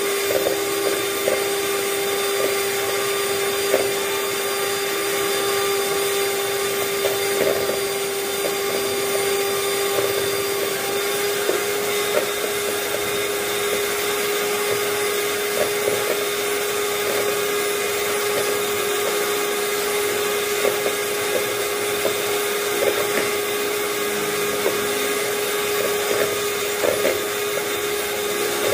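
Electric hand mixer with twin wire beaters running steadily in a plastic bowl, whipping cream that has thickened but not yet reached stiff peaks; its motor gives a constant hum that does not change in pitch.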